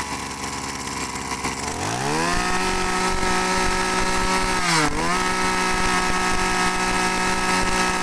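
Kubota 225 two-stroke brush cutter engine idling, then revved up to a high, steady pitch about two seconds in, with a brief dip in revs about five seconds in before it goes back to full throttle.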